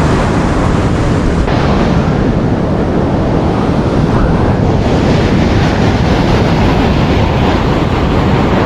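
Ocean surf breaking on a sandy beach, a steady wash of waves, with wind buffeting the microphone.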